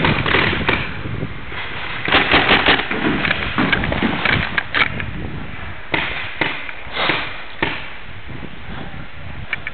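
Paintball markers firing: a string of sharp pops, several in quick succession about two seconds in and again about four seconds in, then single shots spaced out.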